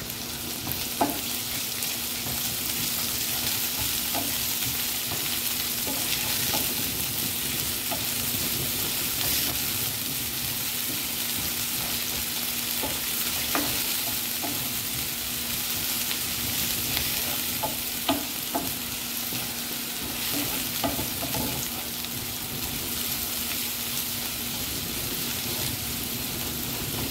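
Diced carrot, capsicum and garlic sizzling in olive oil in a frying pan, with a wooden spatula clicking and scraping against the pan now and then as it is stirred.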